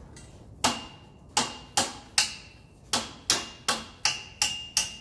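Hammer driving a nail into wood: about ten quick blows, roughly two to three a second, several with a short metallic ring.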